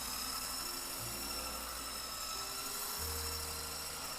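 Electric mixer running steadily at a raised speed, its beaters whipping an instant coffee mixture to stiff peaks: a constant high motor whine over a low hum.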